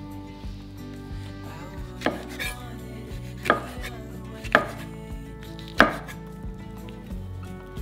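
Kitchen knife slicing through a chili-stuffed fish cake roll and striking a wooden cutting board, four cuts about a second apart, the last the loudest.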